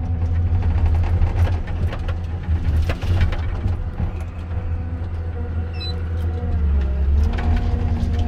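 Komatsu 931.1 forest harvester running under load, with a steady low engine rumble and hydraulics. Sharp cracks and knocks come from the C93 harvester head working a big spruce.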